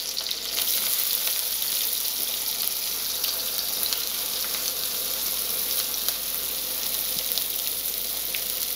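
Hot oil sizzling steadily in a kadai as chopped onions are dropped by hand into the tempering.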